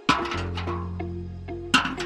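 Background music. Two short noisy sounds cut across it, one just after the start and a louder one near the end.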